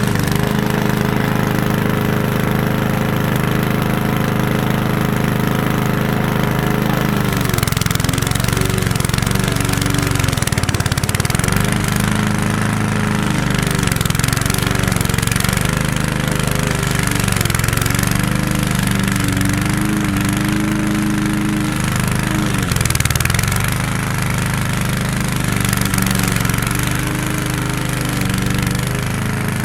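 Lawn mower engine running, steady for the first several seconds, then its speed repeatedly dipping and recovering, as the engine bogs under the load of cutting tall grass and weeds.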